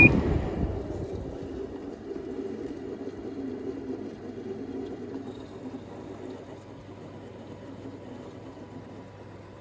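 A GE AWS05LSK1 5050 BTU window air conditioner with a Samsung rotary compressor is switched off with a click. Its running sound cuts out and winds down with a falling whine. Faint refrigerant hissing and gurgling follows, fading away as the system's pressures equalize after shutdown.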